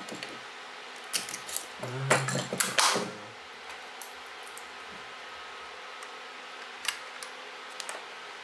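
Small metal camera parts and a camera body being handled on a table: light clicks, with a short burst of clinking and clatter about two seconds in and a couple of single ticks near the end.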